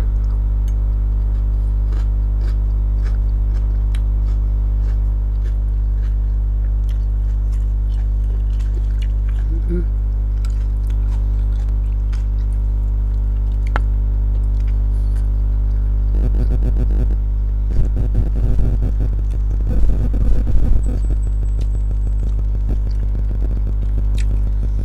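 A steady low electrical-sounding hum throughout, with scattered small clicks and soft chewing and biting sounds of someone eating, and a few brief muffled sounds about two-thirds of the way in.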